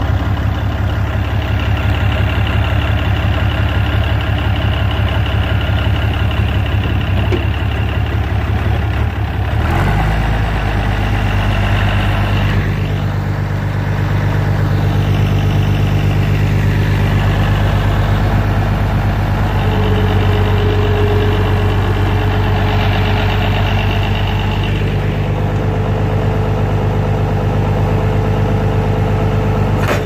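Farm tractor engine running steadily through its upright exhaust stack while pulling a John Deere 24T square baler through the hay. About ten seconds in, the engine note steps up and then holds steady.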